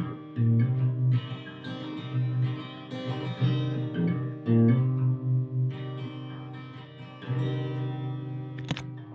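Guitar playing the instrumental ending of a song after the last sung line, with chords and bass notes struck and left ringing. There is a short click near the end.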